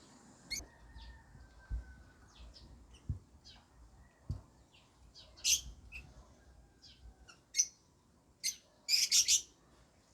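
Lovebirds chirping: short, high calls scattered throughout, with a loud, rapid run of calls near the end. A few soft low thuds sound in the first half.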